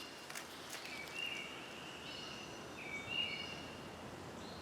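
Faint bird calls in the background: drawn-out whistled notes, twice about a second and a half apart, over a quiet outdoor hiss with a few faint ticks.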